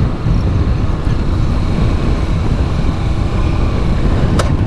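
A 150cc motorbike running under way over rough ground, with a heavy, steady low rumble and a faint steady whine above it. There is one sharp click near the end.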